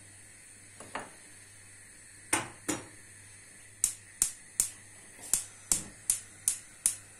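A small copper pan is set down on a gas hob's metal grate with two clanks. Then the hob's spark igniter clicks steadily, about two or three sharp clicks a second, as the burner is lit.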